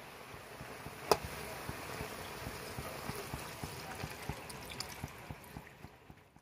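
Pot of curry bubbling as it simmers, with many small irregular pops from bursting bubbles. A sharper click comes about a second in, and the sound fades toward the end.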